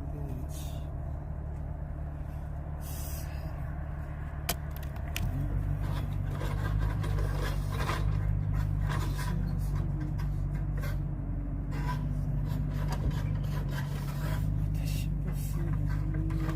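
An engine running steadily, getting louder about five seconds in, with scattered scraping and clicking over it, like wood being handled.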